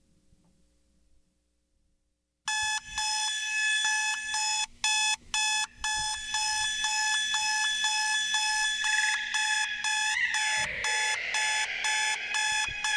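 Electronic alarm clock beeping in rapid, even pulses, played through an Eventide Space reverb pedal. The beeping starts about two and a half seconds in after near silence. From about nine seconds a swirling effect wash swells under the beeps, with a brief swooping pitch bend around ten seconds.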